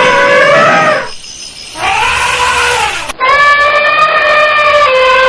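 Elephant trumpeting: three loud calls in a row, each a held tone. The second is short and rises then falls in pitch, and the last runs about two and a half seconds.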